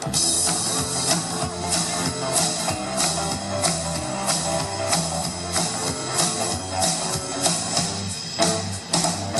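Instrumental rock and roll music: electric guitar over a bass line and a drum kit keeping a steady beat, with no singing.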